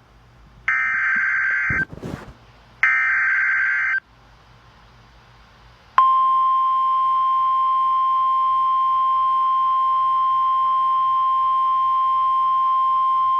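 Emergency Alert System SAME header from a NOAA Weather Radio broadcast: two short bursts of warbling digital data tones, each about a second long, then after a two-second pause the steady 1050 Hz weather radio alert tone sounds from about six seconds in. Together they signal an incoming severe thunderstorm warning.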